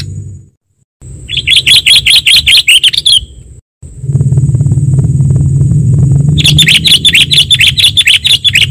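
Sooty-headed bulbul (kutilang) lure recording: two spells of fast chattering, about seven notes a second, each lasting about two seconds. The first starts about a second in and the second about six and a half seconds in. Under the calls run a low rumble and a steady thin high whine, and the sound cuts out briefly twice.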